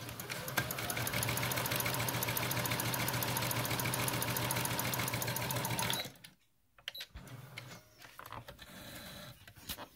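Brother FS101 computerized sewing machine sewing a straight stitch: an even motor hum with a quick, regular ticking of the needle. It runs for about six seconds and then stops, followed by a few faint clicks and rustles of fabric handling.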